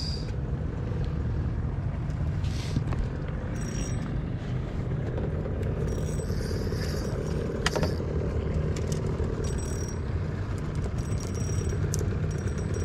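Low, steady rumble of a boat's motor running slowly, mixed with wind on the microphone, with a few light clicks and knocks.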